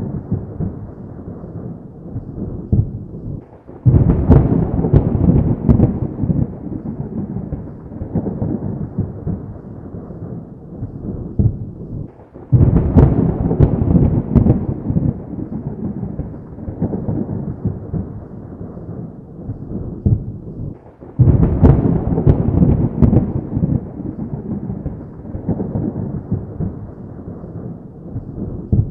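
Thunder: three loud claps about nine seconds apart, each rolling off into a long, low rumble that slowly fades.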